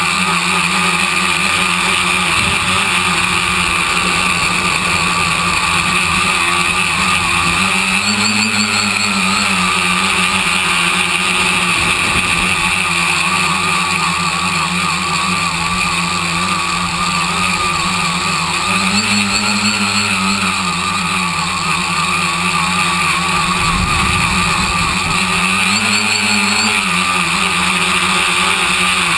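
Tricopter's three electric motors and propellers heard from on board, a steady whine that rises in pitch three times, briefly, as the throttle is pushed up.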